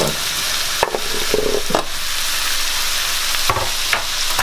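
Vegetables sizzling in oil in a ceramic non-stick wok, a steady hiss, with a few short clacks as they are stirred.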